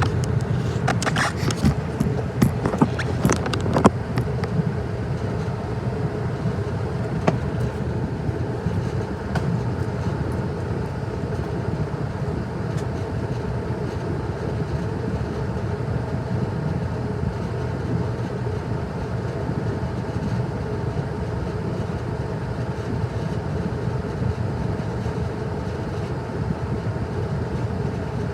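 Comfortmaker 80 gas furnace running with a steady, even hum, with several sharp clicks or knocks in the first four seconds.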